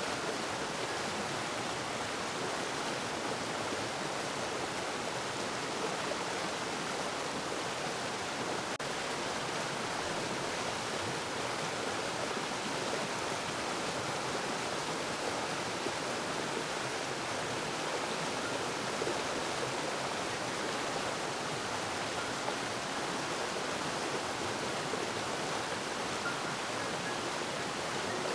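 Steady rushing of flowing water, a stream or small cascade running without a break.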